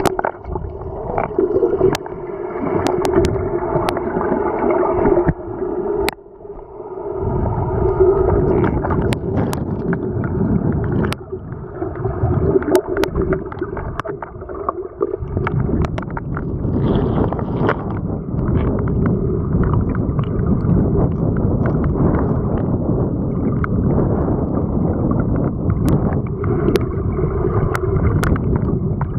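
Underwater sound: the steady hum of a boat's engine and propeller carried through the water, fading briefly about five seconds in and then returning. Around it are water churning against the microphone and scattered sharp clicks.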